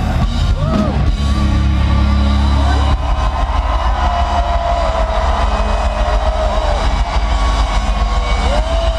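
Live hard rock band holding a final heavy chord in an arena, the low end cutting off about three seconds in, giving way to a dense arena crowd cheering with whistles.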